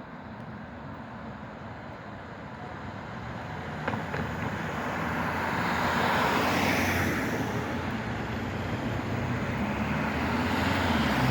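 Tram approaching and passing on street rails. Its rolling noise builds, peaks about six to seven seconds in and stays loud, with a single sharp click about four seconds in.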